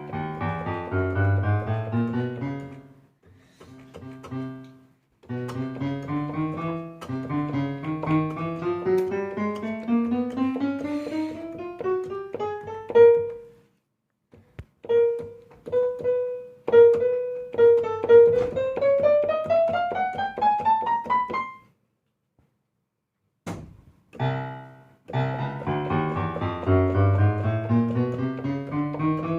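Piano voice played from a Nektar Impact LX49 MIDI keyboard, the keys pressed one after another in several rising runs up the keyboard with short pauses between, to check that every key sounds after the missing-key repair. Occasional knocks of the keys are heard among the notes.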